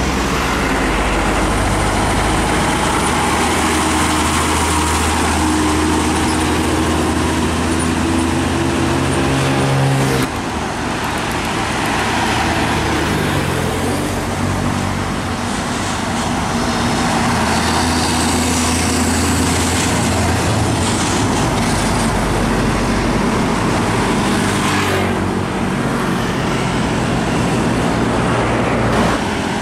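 Trucks and other road traffic passing on a busy highway, with diesel engines running. One engine note climbs steadily for a few seconds and breaks off sharply about ten seconds in, and other engine notes rise and fall after it.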